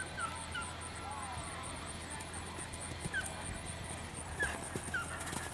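Faint hoofbeats of a horse cantering on a sand arena, with a few soft thuds as it jumps and lands a fence near the end. Short high bird chirps come a few times over a steady outdoor background.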